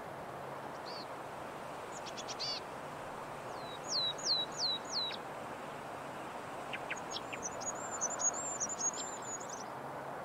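Small birds calling over a steady background hiss: a few short chirps, then four quick down-slurred whistles about four seconds in, and a rapid run of high twittering notes in the last few seconds.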